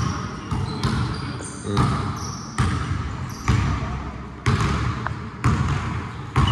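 Basketball being dribbled during a pickup game, a bounce about once a second, with short high squeaks of sneakers on the court.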